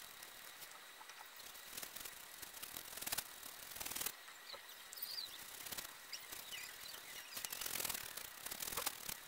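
Flat bristle brush stroking dye onto a leather panel: faint, irregular scratchy swishes of bristles dragged across the leather.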